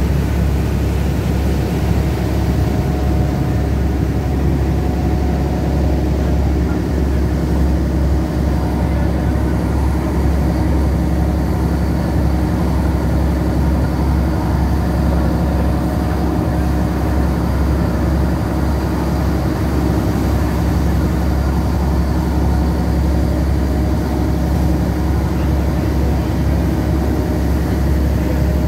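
A boat's engine running with a steady low drone, heard on board, with the wash of its wake churning behind.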